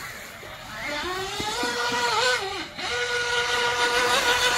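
Radio-controlled speedboat running fast across the water, its motor whining. The whine rises about a second in, dips in pitch and cuts out briefly a little past the middle, then comes back steady as the boat speeds on.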